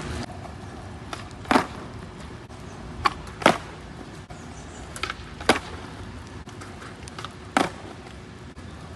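Skateboard on wet ground: a steady hiss broken by five sharp board clacks from pops and landings.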